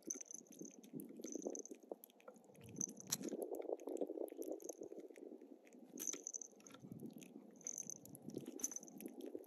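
Domestic cat chewing and biting close to the microphone, with irregular wet mouth sounds and clicks.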